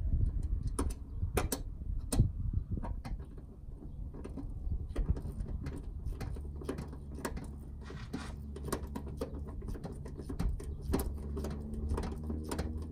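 Hand ratchet clicking in short, irregular strokes as a seat mounting bolt is worked under the seat, with a low steady hum behind it.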